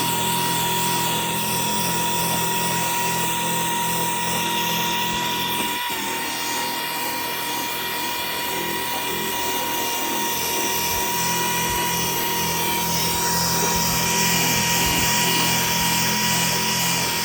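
Corded electric drill running steadily with a high whine, held at an even speed.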